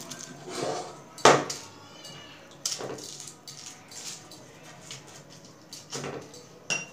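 Silicone pastry brush greasing the butter paper inside a metal cake tin: paper rustling and crinkling under the brush, with scattered taps and knocks of the tin. The sharpest knock comes about a second in.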